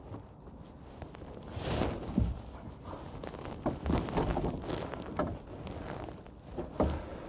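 Irregular knocks and rattles of a wire-framed langoustine pot being handled against a small boat's gunwale, in a few clusters, the loudest about two seconds in and again near the middle.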